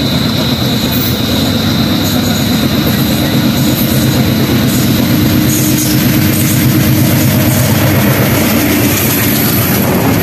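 Bangladeshi intercity passenger train hauled by a diesel locomotive, approaching and running through the station at speed. The rumble of the engine and the wheels on the rails grows steadily louder, with a high steady ringing in the first few seconds, and the coaches roll past near the end.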